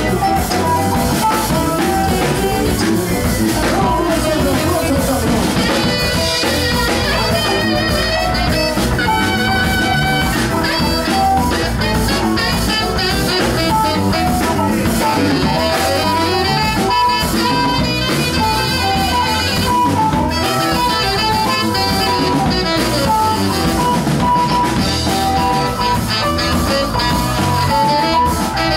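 Live band playing Latin rock: drum kit, electric guitar, bass and keyboards with a saxophone, continuous and loud.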